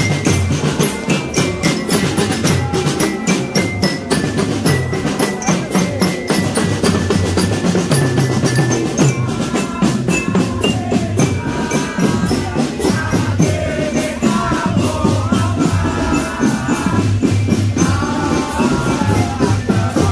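A marching drum corps playing: snare and bass drums beating a fast, dense rhythm. About halfway through, a wavering sung melody joins over the drums.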